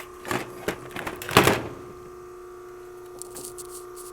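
Blower motor of a Carrier air handler running with its belt removed, a steady hum. A few sharp clicks and knocks come over it, the loudest a short clatter about a second and a half in.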